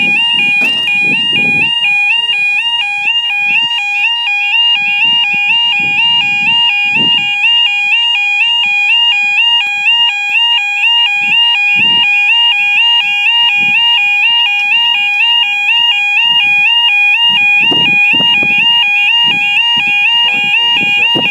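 Level crossing yodel alarm sounding loudly and continuously: a two-tone warble that switches rapidly back and forth between two pitches, the warning that the barriers are coming down or a train is approaching. Low rumbles come and go underneath it.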